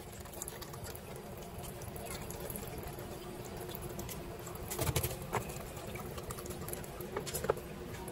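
A red soft drink being poured from a plastic soda bottle into thin plastic cups, with the light knocks of plastic cups and bottle being handled: a few sharp clicks about five seconds in and one more near the end.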